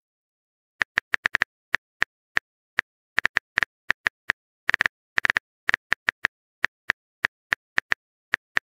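Typing sound effect: a run of short, sharp key clicks at an uneven pace, a few a second, with silence between.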